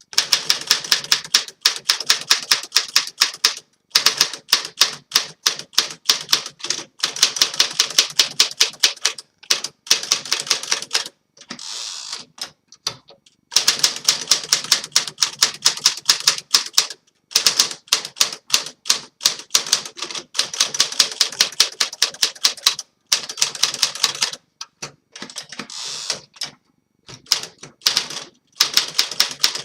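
Typing on a 1956 Smith Corona Silent Super manual portable typewriter, with a new platen fitted: quick runs of sharp keystrokes, several a second, broken by short pauses.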